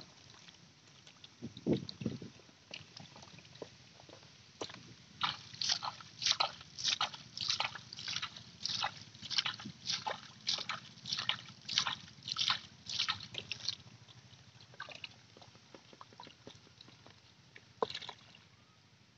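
Bare hands splashing and scooping in a shallow puddle of muddy water: a quick run of splashes, about two a second, for several seconds, with single splashes before and after.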